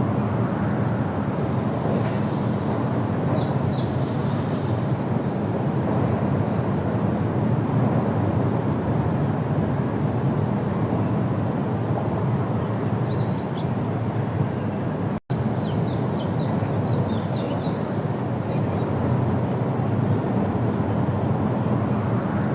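Outdoor field recording: a steady low rumbling noise with a small bird's short, high chirps breaking through a few times, most in a quick run of chirps about two-thirds of the way through.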